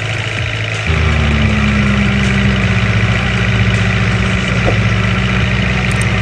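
Heavy vehicle engine running steadily, stepping up louder and fuller about a second in as if taking up a load.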